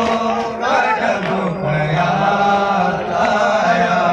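Men chanting a noha, a Muharram lament, into microphones in long, drawn-out held notes.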